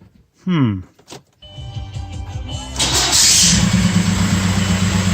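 The 2.0 TDI PD diesel cranked by a new starter motor catches about three seconds in, with a loud burst, then settles into a steady idle. The starter sits too tight against the aftermarket flywheel, which the owner blames for a flywheel noise he doesn't like. A brief sweeping sound about half a second in comes first.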